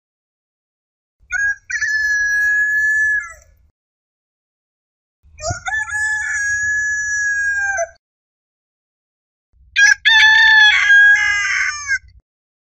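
A rooster crowing three times, each crow a long drawn-out call of two to three seconds, with dead silence between them; the last crow is the loudest.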